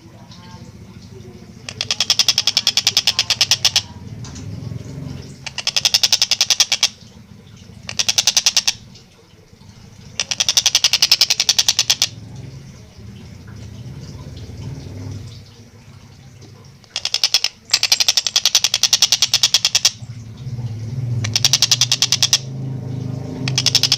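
Tengkek buto kingfisher calling in rapid rattling trills, each a fast run of sharp notes lasting one to two seconds, repeated about eight times with short pauses. A low rumble runs underneath.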